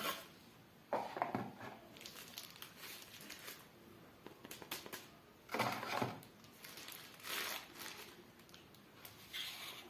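Packaging being handled during a phone unboxing, crinkling and rustling in several irregular bursts.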